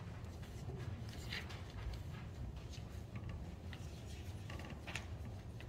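Quiet room tone in a small hall: a steady low hum with scattered small clicks and rustles of handling and movement.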